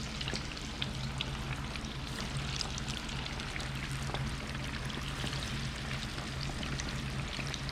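Pieces of Mayan cichlid frying in hot oil at about 325 degrees: a steady sizzle and bubble full of fine crackles, over a steady low hum.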